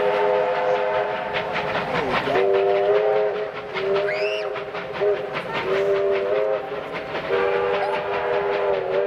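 Steam locomotive whistles sounding several notes at once in long, repeated blasts, dipping in pitch at each brief break, over the fast, even exhaust beats of steam locomotives working hard as they pull away. A short high rising squeal comes about four seconds in.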